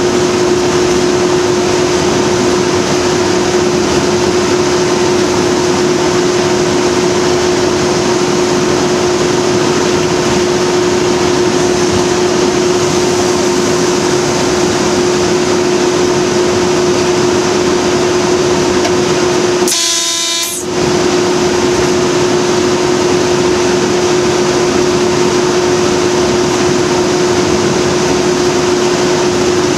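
Class 37 diesel-electric locomotive 37905 running on the move, a steady engine drone with a constant hum. About two-thirds of the way through comes a short horn blast lasting about a second.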